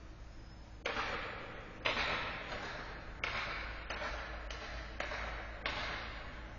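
Seven sharp knocks at uneven intervals, starting about a second in, each ringing on in the echo of an ice arena, over a low steady hum.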